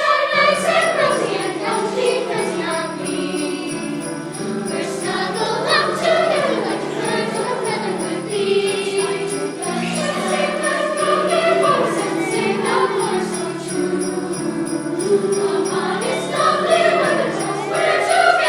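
Youth choir singing a seasonal song, with jingle bells shaken in a steady rhythm over held low accompaniment notes.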